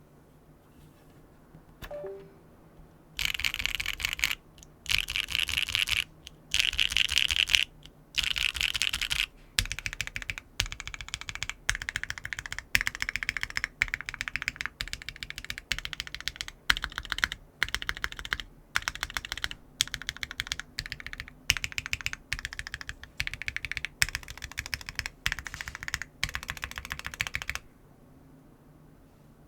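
Typing on a mechanical keyboard fitted with Unikeys x BSUN Waves rail bottom-out linear switches in a polycarbonate plate with no foam, giving a medium-pitched clack that is not too deep. It begins about three seconds in with a few long, dense bursts of keystrokes, goes on as many short runs of keystrokes, and stops a couple of seconds before the end.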